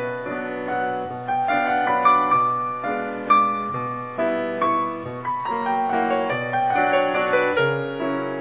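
Background piano music: a melody of struck notes that fade away, played over chords.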